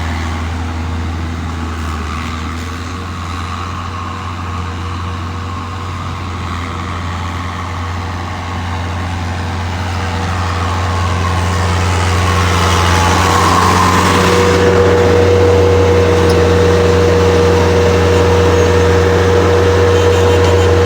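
Diesel engine of a construction machine such as a skid steer loader running steadily, growing louder about halfway through as it is worked harder, with a steady higher whine joining in near the two-thirds mark.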